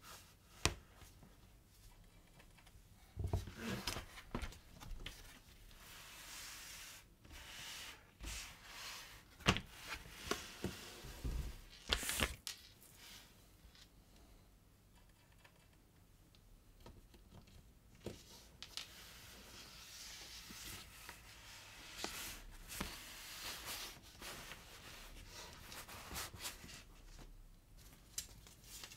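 Leather strap and a paper pattern piece being handled on a cutting mat: scattered rustling, scraping and light taps, with a few sharper clicks in the first half.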